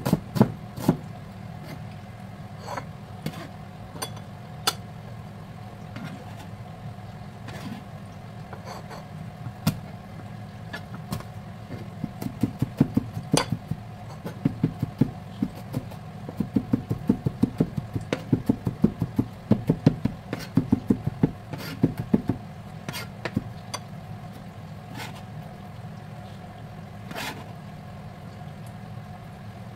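Kitchen knife chopping onion and garlic on a plastic cutting board: sharp taps, some scattered and some in quick runs. Near the end, the knife scrapes the chopped garlic across the board. A steady low hum runs underneath.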